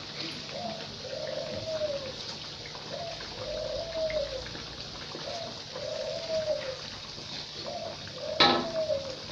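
A bird cooing over and over, each phrase a short note then a longer arched one, about every two seconds, over the steady sizzle of breadfruit slices deep-frying in a wok of oil. About eight seconds in, a sharp metal clank of a spatula against a wok.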